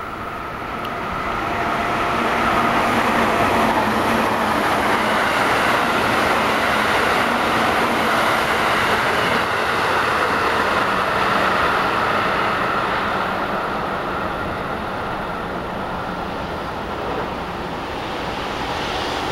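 A JR West 221 series electric multiple-unit train passing at speed: steady rolling noise of wheels on rail, with a faint steady hum. It builds over the first couple of seconds, holds, then slowly fades in the second half.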